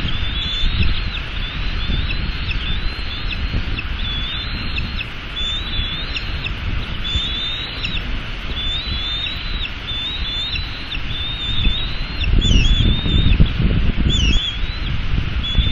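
Bald eaglets chirping steadily in thin, high, wavering peeps, about one a second, as they are fed. Under them is a low rumble of wind on the nest-cam microphone, gusting stronger about twelve seconds in.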